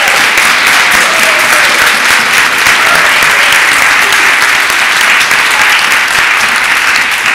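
Congregation applauding: many people clapping steadily together.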